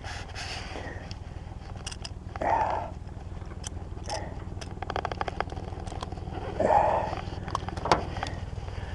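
Clicks and taps of a metal hand tool and hands working on a landed black sea bream on a boat deck, over a steady low hum. Three short, louder sounds stand out: about two and a half seconds in, near seven seconds, and just before the end.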